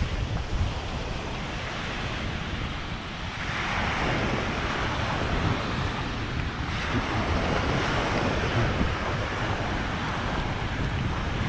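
Gulf of Mexico surf washing onto the beach, two waves rushing in partway through, over a low rumble of wind buffeting the microphone.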